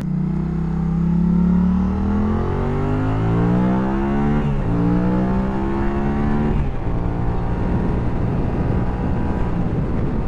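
Yamaha FZ-07's 689cc parallel-twin engine pulling hard under throttle, its pitch climbing steadily, then dropping sharply at an upshift about four and a half seconds in and climbing again. After a second drop near seven seconds it runs at a steadier, lower pitch.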